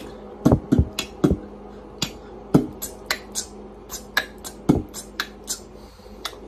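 A cat's claws clicking on a hard tiled floor as it walks: irregular sharp taps, two or three a second.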